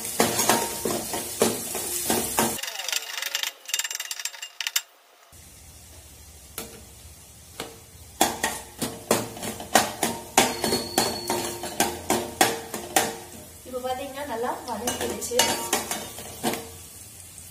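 Chopped onions frying in oil in a stainless steel pan, with a steel spatula stirring and scraping and sharp clicks as it strikes the pan. The sizzle drops away for a couple of seconds a few seconds in. The onions are being sautéed until soft and golden.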